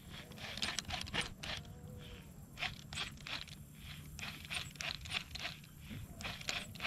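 Baitcasting reel being cranked to retrieve line: an irregular run of short, scratchy clicks, a few a second, over a low steady rumble.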